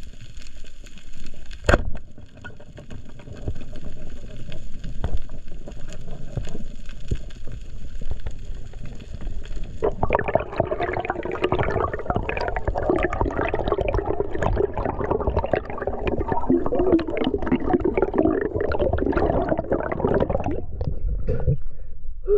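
Underwater sound heard through a camera housing: scattered ticks and a sharp knock about two seconds in. From about ten seconds in comes a long rush of gurgling air bubbles past the camera as the diver rises, thinning out near the end as the camera reaches the surface.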